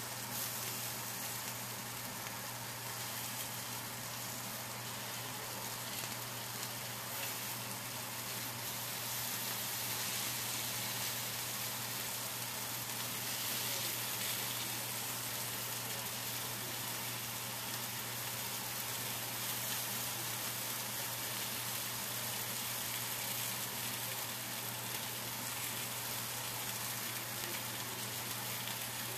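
Steady sizzling of food frying on a gas stove: marinated chicken wings on a griddle and potatoes in a pan of hot oil, with a steady low hum underneath.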